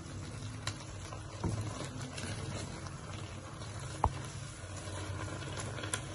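Grated carrots bubbling in milk in a kadhai on high heat, being stirred with a spoon scraping through the pan, as the milk is cooked down for gajar ka halwa. A sharp knock of the spoon on the pan comes about four seconds in.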